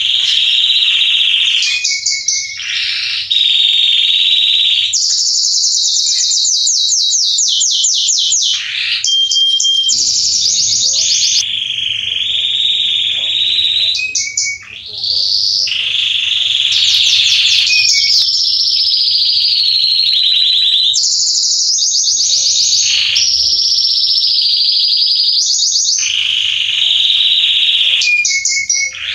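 Male Belgian canary singing: long, high-pitched song phrases of fast rolling trills and repeated notes, broken by a few short pauses.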